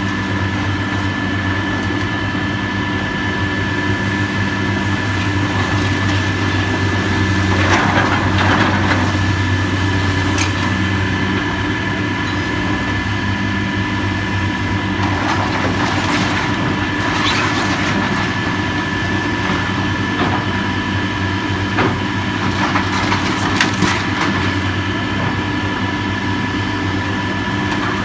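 Heavy demolition machinery's engine running steadily under load, with loud crunching and cracking of building debris in three stretches: about 8 seconds in, around 15 to 18 seconds, and around 22 to 24 seconds.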